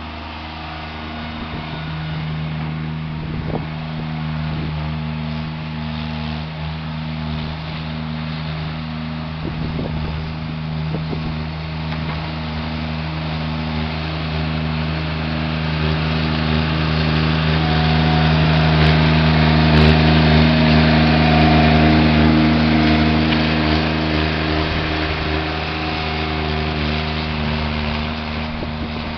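Mini skid steer engine running steadily under load while pushing snow. It grows louder for several seconds past the middle, then eases back.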